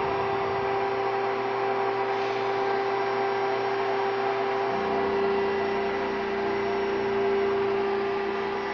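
Mill One desktop CNC machine running a job inside a closed dishwasher: a steady motor whine and hum, muffled by the dishwasher's insulation. About five seconds in, a lower tone joins it and carries on.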